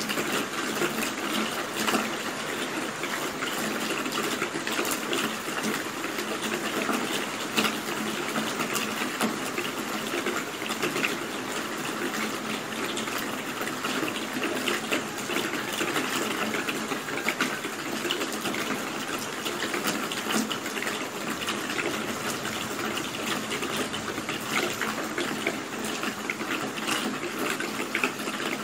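Steady rain falling, an even hiss with dense, fast patter of individual drops striking a surface.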